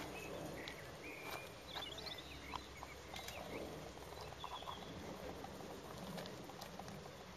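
A few sharp snaps and rustles of dry twigs as a greater kudu works its horns through a brush pile, with small birds chirping faintly over low outdoor background noise.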